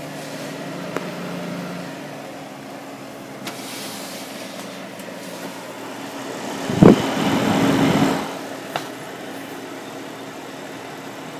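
Steady low hum of a running desktop PC's cooling fans, heard close up with camera handling noise. About seven seconds in there is a loud knock, followed by about a second of louder rushing noise.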